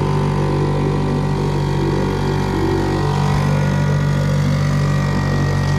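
Small fishing boat's outboard motor running at an even, unchanging pitch while under way.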